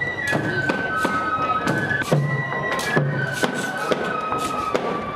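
Japanese festival music for a lion dance: a bamboo flute (fue) playing a high melody of long held notes that step down in pitch, over frequent sharp drum strikes at irregular intervals.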